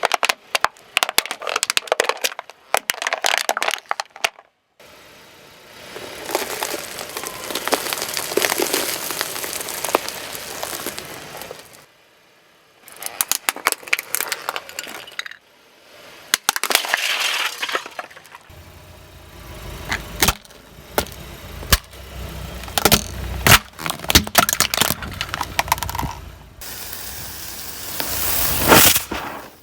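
Objects being crushed under a car's tyres, in several short separate takes: dense sharp cracking, crunching and breaking, some of it glassy, alternating with stretches of steady crackling. In the later takes a low rumble of the car runs under the cracks.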